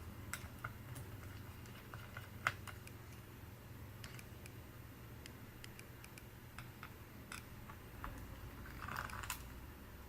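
Scattered small clicks and taps of laptop parts and tools being handled, with one sharper click about two and a half seconds in and a brief scraping rustle near the end.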